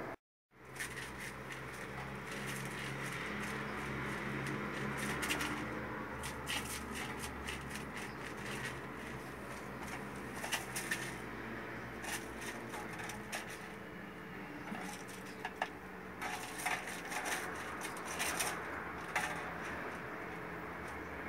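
Kittens playing with a small toy on a tiled floor: scattered light clicks and taps of the toy and paws on the tiles, more frequent in the second half, over a steady background hum.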